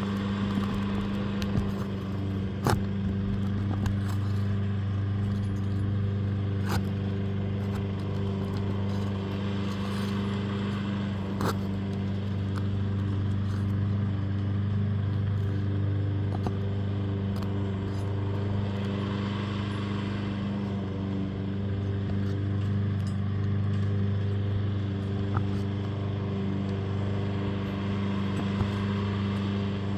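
A steady low machine hum, like an engine or motor running without change, with a few scattered sharp taps.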